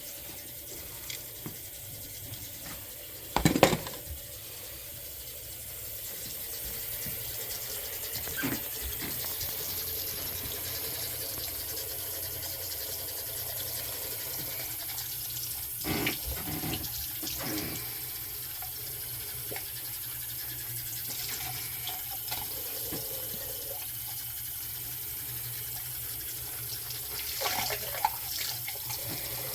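Water running steadily from a faucet into a sink, coming up about six seconds in, with a sharp knock before it and a few clatters later. It is a test of a drain just cleared of a hair clog.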